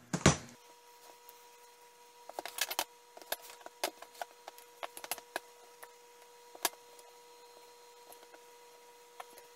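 Light, scattered taps and clicks of a wooden rolling pin handled and rolled on a stainless steel counter, with one sharper knock near the start. A faint steady hum runs underneath.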